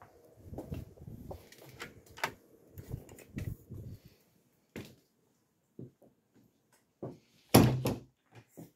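A door being opened and stepped through: a scatter of clicks, knocks and low thuds over the first few seconds, sparse clicks after that, and a louder sharp thud near the end.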